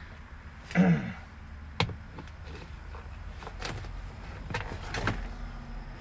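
Sharp clicks and light knocks from a manual truck's gear shift lever as it is pressed down by hand onto a shifter stub shimmed with tape to take up its play. A short voice sound comes about a second in, and there is a steady low hum underneath.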